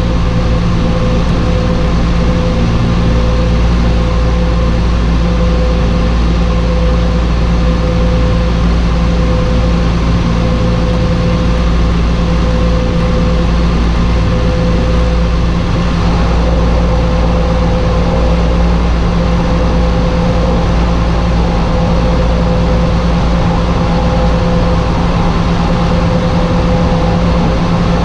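Twin Garrett TPE331-10 turboprop engines of a Turbo Commander 690B running at low power during the landing rollout, heard in the cockpit as a steady drone with a constant whine. About halfway through, the pitch of the whine shifts slightly and a second, higher tone joins it.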